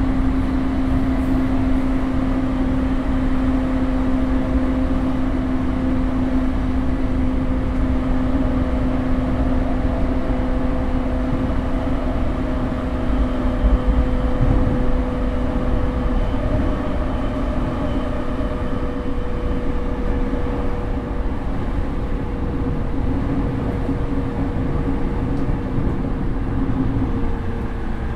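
A JR E231 series electric train (motor car MoHa E230-560, non-retrofitted Mitsubishi IGBT-VVVF equipment) running at speed, heard on board. A steady whine rides over the rumble of the wheels on the rails, and its pitch sinks slightly near the end.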